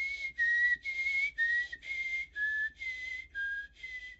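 A person whistling an imitation of a high-low two-tone siren: short notes, about two a second, alternating between a higher and a lower pitch, with the low note sinking a little further each time.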